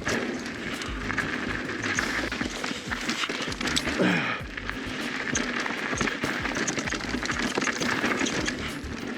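Mountain bike being ridden down a dirt trail: tyres crunching over dirt and rocks, with the bike clattering and rattling over the bumps. A brief falling whine comes about four seconds in.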